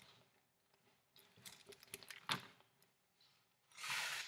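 Paper pages of a picture book being handled and turned: a few soft taps and rustles, then a louder swish of a page turning near the end.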